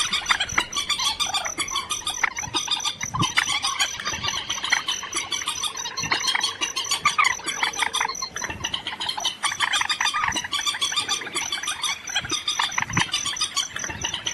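A dense mix of many overlapping bird calls and chirps, a bird-call recording of the kind played to lure birds into nets at night, with a steady thin high tone running underneath.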